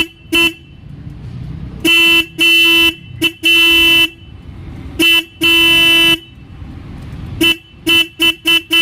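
Royal Enfield 350 motorcycle's electric horn honked repeatedly at one steady pitch. It gives a few short taps and three longer blasts, then a quick run of short toots near the end.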